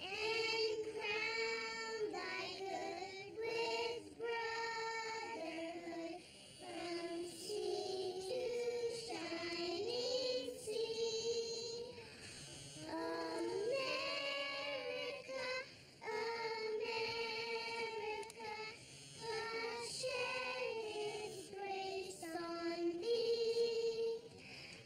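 Children singing a song together: one melody line with long held notes, in short phrases.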